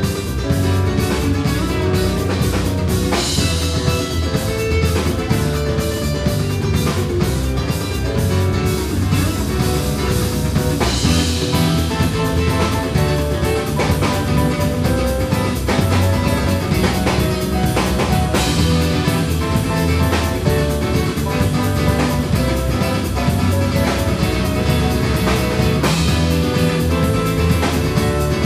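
Live band playing rock-style music, with a drum kit keeping a steady beat under guitar. A bright cymbal-like wash comes back about every seven to eight seconds.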